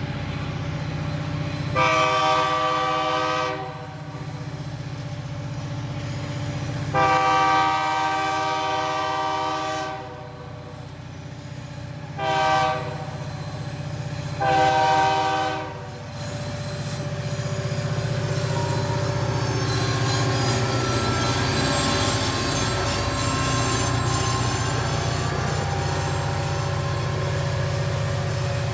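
SWP SD40-2 diesel locomotive's air horn sounding the grade-crossing signal, long, long, short, long. Then the locomotive's EMD two-stroke diesel engine runs steadily and the freight train's wheels roll past over the crossing.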